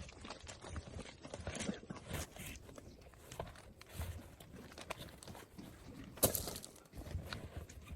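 Scattered light knocks and clatter of tools and parts during work on a heavy dumper tire, irregular, with a louder sharp knock about six seconds in.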